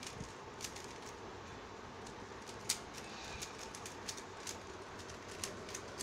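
Rubik's cube being turned quickly by hand: irregular plastic clicks and clacks as the layers are twisted, with one louder clack about two and a half seconds in, over a steady faint hiss.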